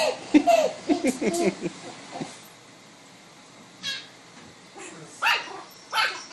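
A baby and a small fluffy puppy trading sounds back and forth: the baby babbling and squealing, the puppy answering with short, high yapping barks. The baby's wavering sounds fill the first couple of seconds, and a few sharp yaps come in the second half.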